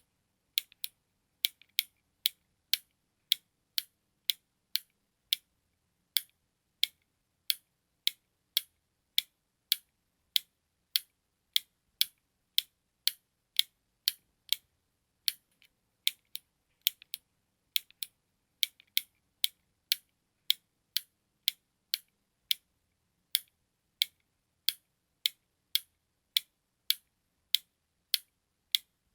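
Button clicks repeating steadily, about two to three sharp clicks a second, some falling in quick pairs.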